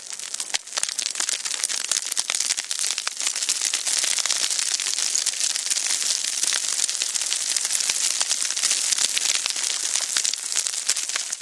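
Falling debris sound effect: a dense, continuous clatter of many small pieces pattering down, light and high with no heavy thuds. It builds over the first couple of seconds, then holds steady.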